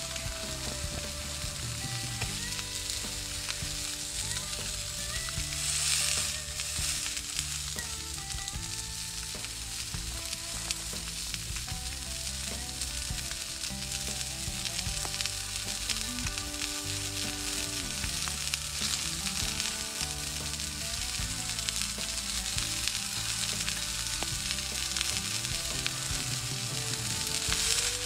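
Juicy Lucy burger patty sizzling steadily in a steel pan over a wood-burning camp stove, with a brief louder surge of sizzle about six seconds in. Soft background music plays underneath.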